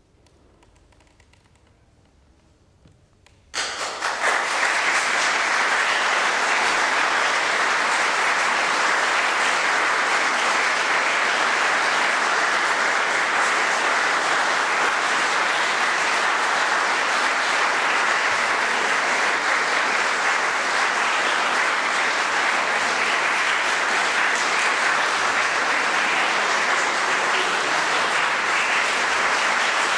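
A hush of about three and a half seconds, then audience applause breaks out suddenly and goes on steadily.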